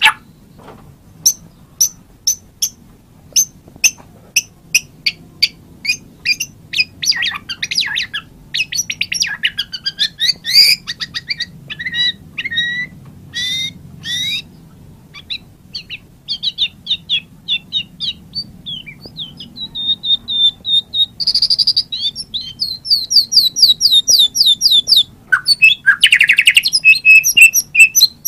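White-rumped shama (murai batu) singing a long, varied song. Spaced sharp ticking notes run into whistled phrases and fast trills, over a faint low hum.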